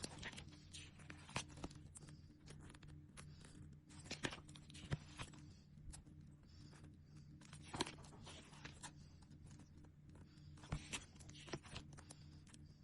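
Sticker sheets and their plastic packaging being handled: irregular small crinkles, clicks and taps over a faint steady low hum.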